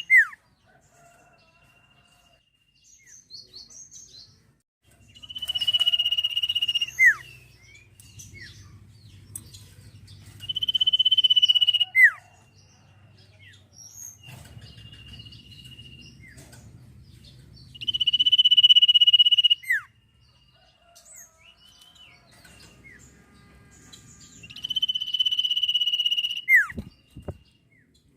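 A sirpu, a small songbird kept by Indonesian bird keepers, singing: a long, steady, high note ending in a quick falling slur, repeated five times at intervals of about six to seven seconds, with soft chirps between.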